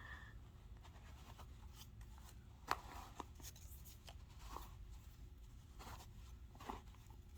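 Faint handling noises of a jar cap being twisted and fiddled with on its jar: a few soft clicks and rubs, the loudest about two and a half seconds in.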